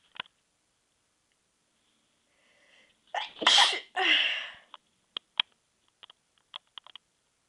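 A person's stifled sneeze about three seconds in, in two quick bursts, after a faint breath and followed by a few small clicks.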